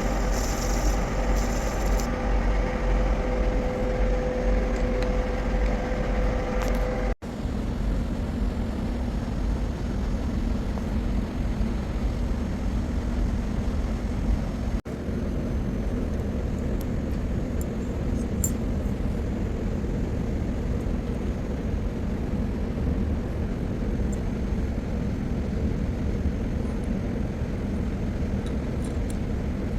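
Steady, loud machinery drone with a deep rumble and, for the first several seconds, a humming tone; it cuts out abruptly twice.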